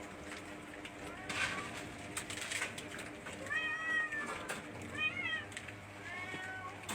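Domestic cats meowing at feeding time: three meows in the second half, the first one longest, after a couple of brief rustles.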